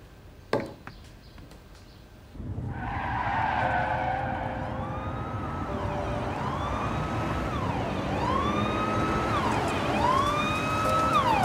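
Police siren wailing, rising and falling about every two seconds and growing louder as it comes closer, over the rumble of a car driving. A single sharp click about half a second in.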